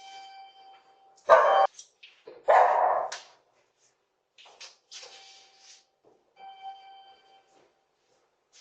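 A dog barking, two loud barks a second or so apart, with a few fainter ones. A steady ringing tone sounds twice, once before the barks and again later.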